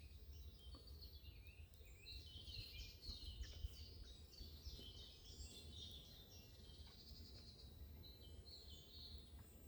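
Faint birdsong: several small birds chirping and trilling throughout, over a low steady rumble of background noise.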